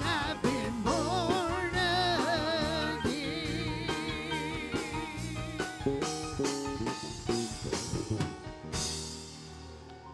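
Live gospel song with a band and drum kit, the singer holding the last words with a wide vibrato as the song ends. Near the end a cymbal-like crash rings out and the music fades down.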